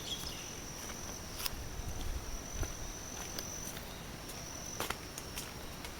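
An insect's steady high-pitched trill that breaks off a little past halfway and returns briefly. Under it, footsteps and a few sharp clicks.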